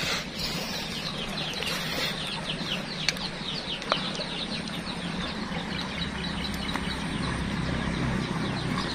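Birds chirping in a quick, continuous run of short downward-sliding notes, over a steady high whine that stops about seven seconds in. Two light clicks come around three and four seconds in.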